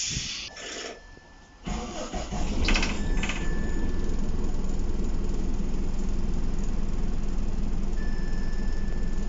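Optare Solo bus: a short burst of air hiss, then, heard from inside the bus, its diesel engine idling steadily from about two seconds in. A thin electronic tone sounds briefly three times over the idle.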